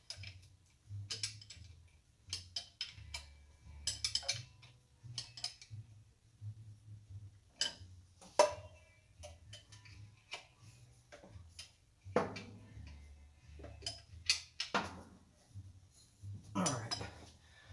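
Light, irregular metallic clicks and taps from a small hand tool working the terminal nuts on an ignition coil as they are tightened, some coming in quick runs.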